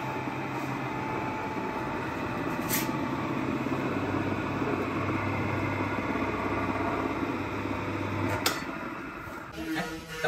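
Cricket bat pressing machine running steadily, its steel roller pressing the willow blade of a cricket bat. There is a sharp click about eight and a half seconds in, and the machine sound drops away shortly before the end.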